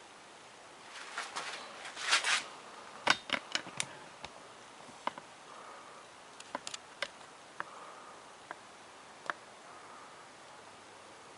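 Handling noise: a brief rustle, then a scatter of light clicks and taps as small parts and tools are handled.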